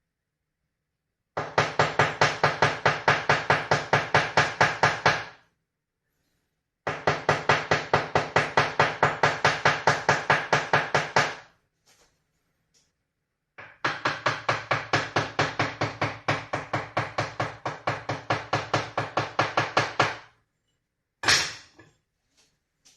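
A handmade scallop-shell rattle shaken in quick, even strokes, about five hard clacks a second. It sounds in three long runs separated by silences, with a short burst near the end.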